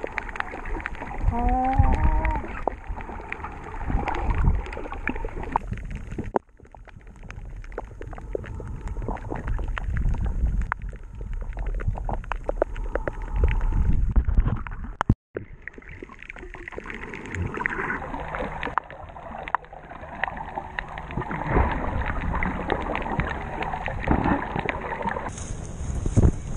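Muffled underwater sound from an action camera in its housing while snorkelling: sloshing water, bubbles and small clicks, with a few muffled vocal sounds from a snorkeller in the first couple of seconds. The sound breaks off abruptly twice, and near the end it changes to wind on the microphone.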